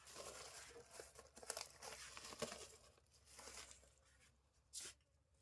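Faint rustling and crinkling for the first few seconds, then a single short click near the end.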